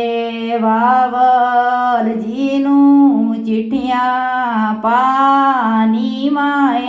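A woman singing a Punjabi folk wedding song in long, drawn-out notes that slide between pitches. No drums are heard.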